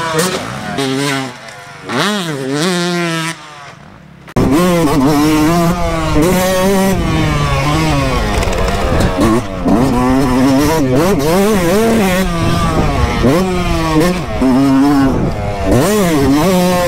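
Two-stroke Yamaha YZ motocross bike engine revving up and down as it is ridden on a dirt track, its pitch climbing and dropping with the throttle. It is quieter for the first four seconds or so, then loud and close from about four seconds in.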